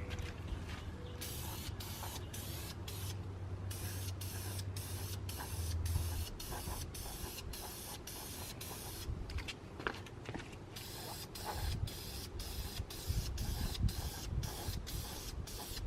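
Electrical tape being pulled off the roll and wrapped around wiring connectors: a crackly hiss in short stretches that stop and start abruptly, about twice a second, over a low steady hum that fades out about six seconds in.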